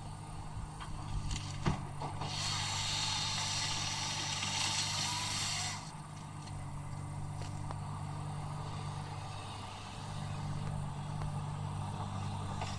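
Excavator diesel engine running steadily under a felling head, with a loud hiss for about three and a half seconds a couple of seconds in. A few sharp clicks sound near the start, and the engine note grows louder again near the end.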